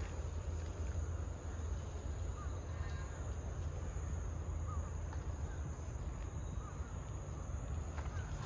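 Outdoor background: a steady low rumble and a steady high thin whine, with a few short, faint bird calls spread through it.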